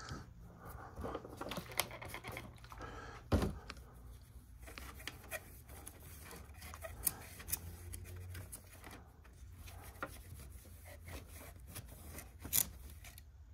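Faint scattered clicks and taps of a opened VHS cassette and small tools being handled during cleaning, over a low steady hum, with a sharper knock about three seconds in and another near the end.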